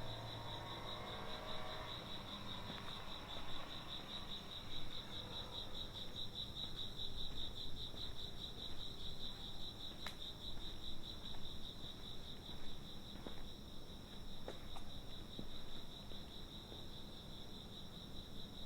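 Crickets chirping steadily in a fast, even pulsing trill, with a few faint sharp ticks in the middle.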